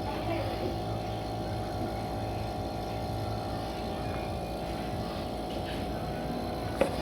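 Embraco VSC variable-speed compressor of an R600 freezer running with a steady hum, while the system sits on a low refrigerant charge. A brief click comes near the end.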